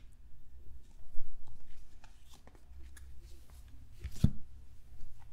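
A stack of 2022 Topps Update baseball cards being flipped through by hand, cards slid from the front to the back of the stack: soft papery flicks and slides, with a dull thump about four seconds in.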